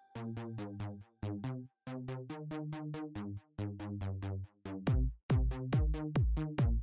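Electronic background music with a steady, fast pulse of short synth notes over a bass line; a deep kick drum comes in about five seconds in.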